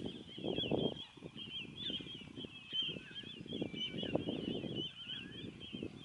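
A flock of birds calling all at once: a dense, unbroken high chatter of short chirps, with rougher, lower calls coming in irregular bursts beneath it.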